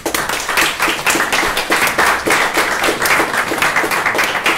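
Audience applauding: dense clapping that starts suddenly as a poem ends.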